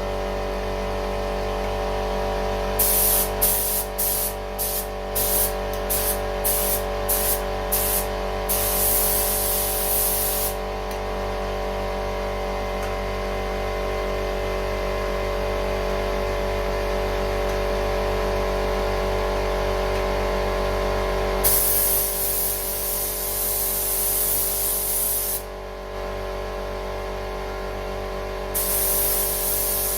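Paint spray gun spraying 2K lacquer in bursts of hissing spray: a quick run of short trigger pulls, then longer passes. Under them a motor runs steadily throughout.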